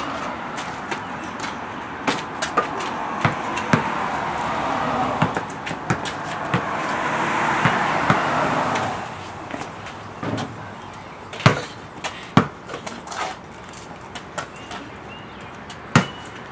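A basketball bouncing on a concrete driveway as it is dribbled, giving sharp, irregular thuds, with a louder one about eleven and a half seconds in. A rushing noise swells and then drops away about nine seconds in.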